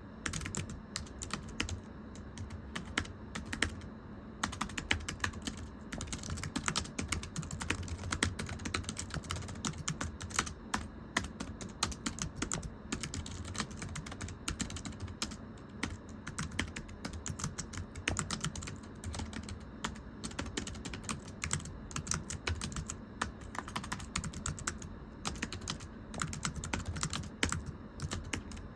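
Steady, continuous typing on a very thin, low-profile computer keyboard: quick runs of light, flat, slappy key clicks ("pechi-pechi").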